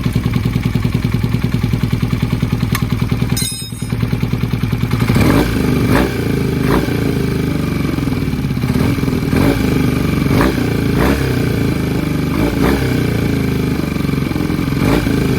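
Honda CB250T Hawk's parallel-twin engine running with an abnormal noise: a steady, evenly pulsing idle at first, then, after a brief dip about four seconds in, the engine is blipped and repeated knocks sound through it.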